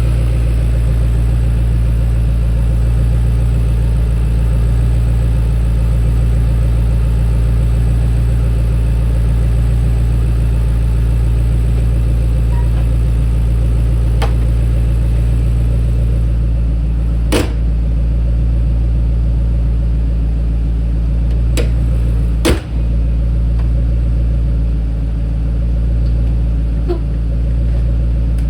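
Ford Mustang engine idling steadily, with a few sharp clicks about two-thirds of the way through.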